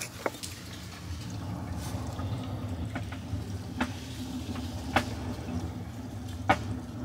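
Water dripping inside a traction engine boiler's smokebox and fire tubes: four sharp drops, irregularly spaced, over a steady low hum.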